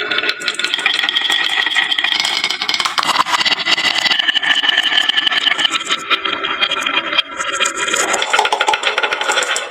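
Many marbles rolling and clattering down wooden marble-run slopes: a continuous rattle of fast clicks with a steady rolling whirr.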